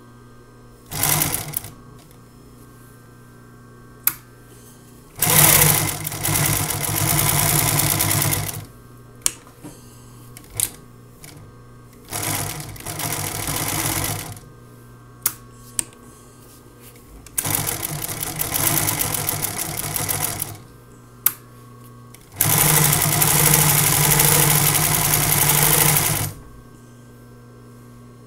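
Adler K268 double-needle post-bed walking-foot industrial sewing machine stitching in five bursts: a short one about a second in, then runs of two to four seconds. A steady motor hum continues between the bursts, with several short sharp clicks.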